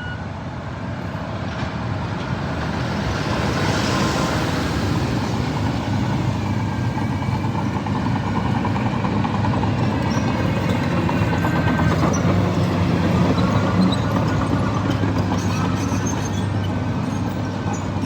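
Komatsu bulldozer's diesel engine running steadily under work, growing louder over the first few seconds, with faint high squeaks over the rumble.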